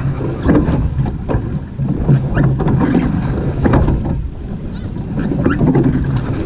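Surf boat being rowed: oars splashing through the water and knocking in their rowlocks, in surges about every two and a half seconds, with wind buffeting the microphone.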